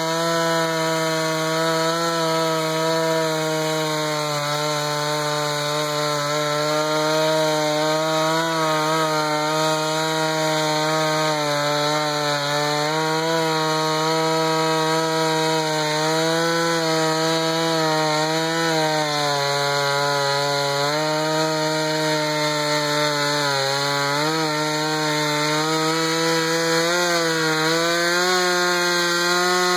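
Jonsered 2091 two-stroke chainsaw (about 93 cc) in a chainsaw mini mill, running at high revs under load as its low-profile rip chain saws lengthwise through a pine cant. The engine note stays steady, sagging briefly in pitch twice about two-thirds of the way through as the cut loads it.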